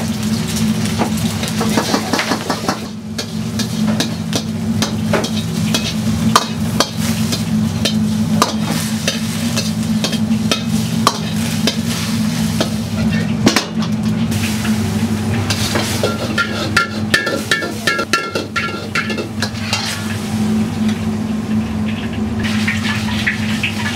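Beaten egg sizzling in a hot carbon-steel wok as a metal ladle stirs and scrapes it, with frequent clicks and clanks of the ladle against the wok, over a steady low kitchen hum.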